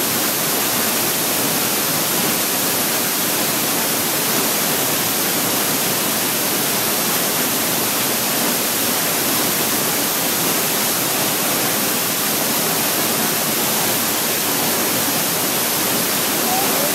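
Waterfall rushing close by, a loud steady noise of falling water that does not change.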